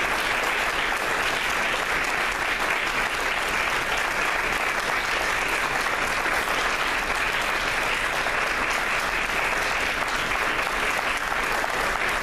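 Audience applauding steadily, a dense sustained clapping from many hands.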